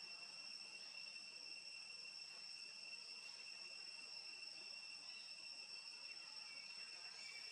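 Faint, steady high-pitched drone of insects, an even unbroken trill with no pauses.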